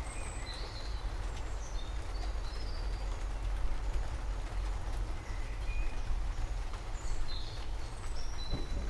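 Small birds chirping in short high calls over a steady low rumble and hiss of storm ambience; near the end a deeper thunder rumble begins to build.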